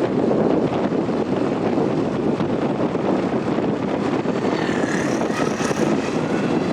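Steady, loud rush of road traffic passing close by, with engine noise and wind on the microphone; a few faint brief tones show up about two-thirds of the way through.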